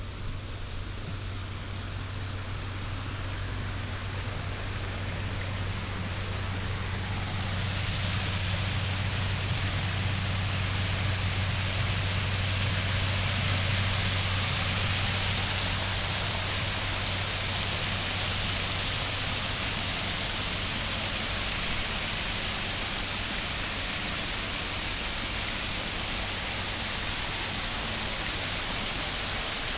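Water pouring over a small rock cascade into a garden pond, a steady rushing that grows louder about seven seconds in and then holds. A low steady hum runs underneath.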